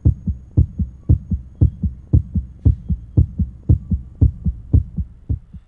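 Fetal heartbeat from an ultrasound scan: quick, even thumps, about four a second, that fade and stop near the end.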